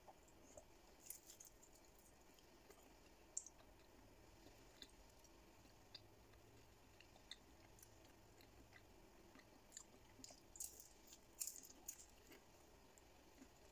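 Faint chewing and soft mouth clicks of a person eating a fried spring roll, with a denser run of clicks about ten to twelve seconds in.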